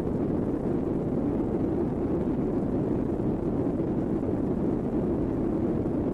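Synthesized space-ambience drone presented as the 'sound' of Uranus's moon Puck: a steady, low hissing rumble with no pitch or rhythm, holding an even level.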